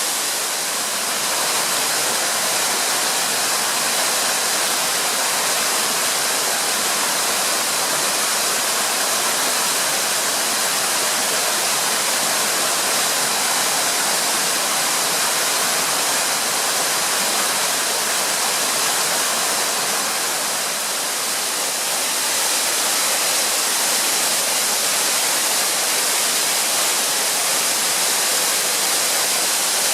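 Sandan-no-Taki, a 50 m waterfall: falling water rushing steadily.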